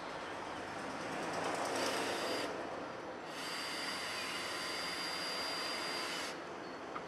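Handheld power tool running in two bursts, a short one and then a longer one of about three seconds, each a steady high whine over hiss that stops sharply.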